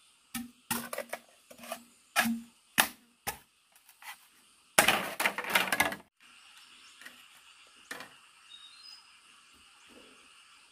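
A run of sharp chopping strikes on wood over about three seconds, then a second or so of dense cracking and splintering as the wood gives way. A steady chorus of frogs and insects carries on behind.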